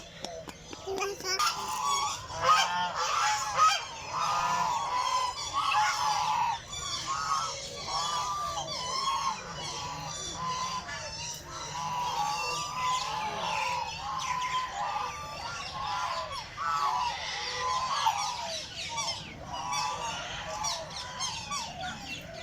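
A flock of birds calling, many short calls overlapping one another without a break.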